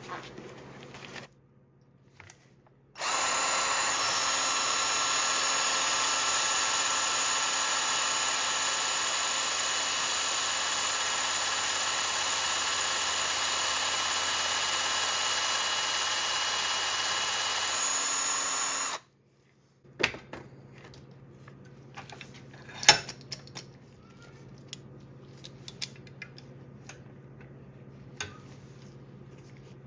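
Small electric drill running steadily for about sixteen seconds, a steady high motor whine, boring a roughly 2 mm hole through a belt buckle; it starts and stops abruptly. Light clicks and knocks of the part being handled follow.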